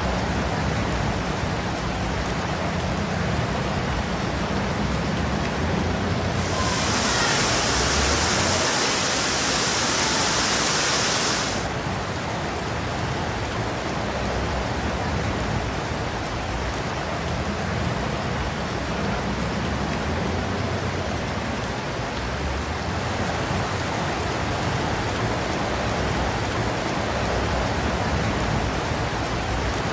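Steady hiss of heavy rain and rushing floodwater, with a sharper high hiss for about five seconds near the start.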